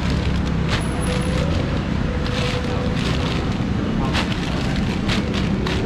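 Busy market ambience: a steady low rumble with indistinct background voices, and a few short crinkles of plastic bags of frozen seafood being picked up and sorted.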